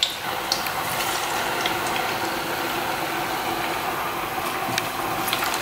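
Raw potato sticks dropped into a pot of very hot sunflower oil, setting off the steady sizzle of deep-frying French fries. The sizzle jumps up sharply at the start and then holds steady.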